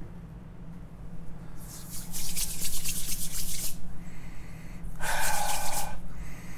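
A man sniffing beard oil from his cupped hands: a long sniff about a second and a half in, and a shorter one about five seconds in.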